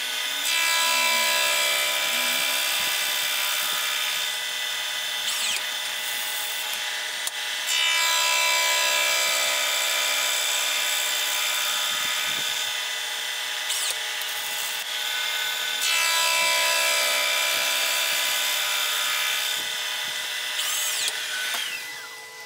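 Milling machine running with a steady, whining tone while it takes three cutting passes of about seven seconds each. Each pass starts loud and eases off a little.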